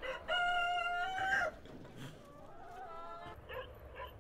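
A rooster crowing: one loud held crow lasting about a second, then a fainter second crow, and two short calls near the end.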